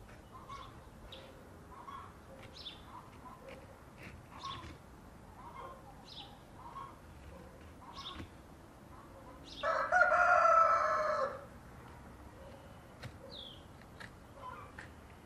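A rooster crows once, about ten seconds in: a loud call under two seconds long that drops in pitch at the end. Small birds chirp repeatedly throughout.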